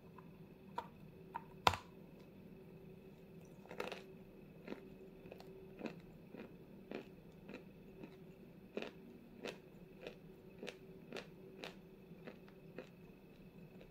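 Close-up bites and chews of a dry chunk of 'Zefirka' edible chalk: one loud crunch near the start, then steady crunchy chewing about twice a second.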